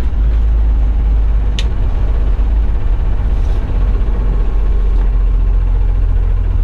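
School bus engine running with a steady, loud low rumble as the bus drives on. A single sharp click about a second and a half in.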